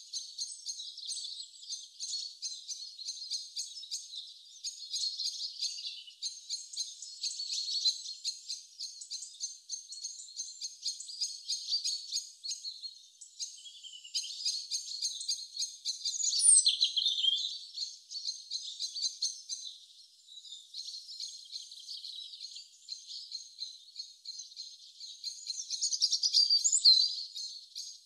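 Birds chirping in a dense, steady chorus, all high-pitched, with louder swooping calls a little past halfway and again near the end.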